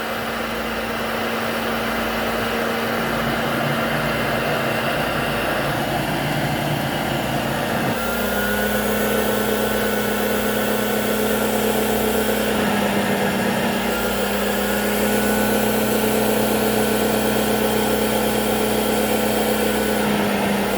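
Hoover Junior 1348 direct-air upright vacuum cleaner running steadily, its motor humming under a rush of air. The tone steps slightly higher about eight seconds in, with a thin whine added, and shifts again a few seconds later as the airflow changes.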